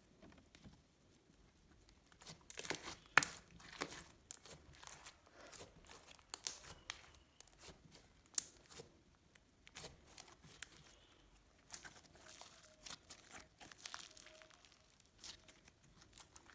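Slime being stretched and kneaded by hand. It makes irregular clicks and pops that start about two seconds in.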